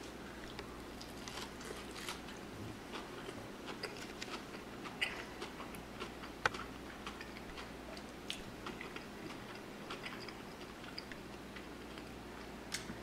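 A person chewing a bite of fried bluefish, with soft mouth clicks and crunches scattered throughout and one sharper click about six and a half seconds in.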